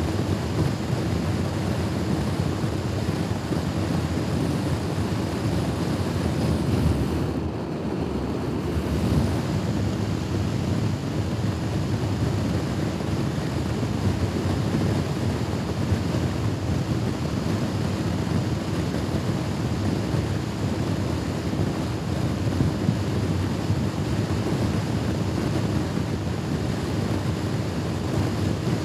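Steady wind rush on the microphone of a moving Honda Forza scooter, with the engine and road noise running underneath; the rush eases briefly about eight seconds in.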